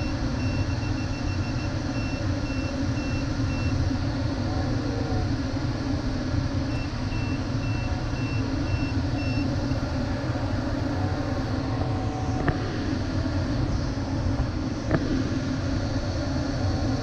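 Steady rush of airflow inside the cockpit of an LS7-WL sailplane in flight. Twice it is joined by a run of rapid, evenly spaced high electronic beeps from the glider's instruments, about two to three a second, and there are a couple of brief clicks in the second half.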